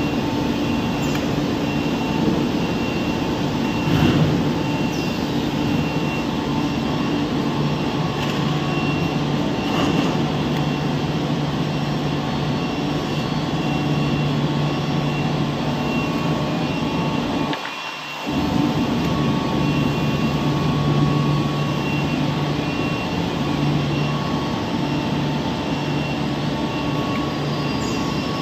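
1500 mm cast stretch film production line running: a steady machine hum with several held tones from its motors and winder. The low hum drops away for about half a second roughly two thirds of the way through, and a few faint knocks come over it.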